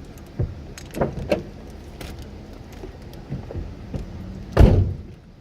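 A run of handling knocks, clicks and rattles over a steady low rumble, with one much louder thump about four and a half seconds in.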